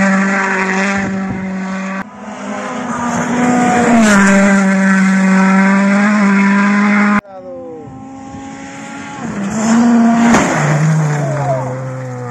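Rally car engines running hard at high revs, holding a near-steady pitch, with abrupt jumps in sound about two and seven seconds in. After the second jump the pitch falls away several times and settles lower near the end.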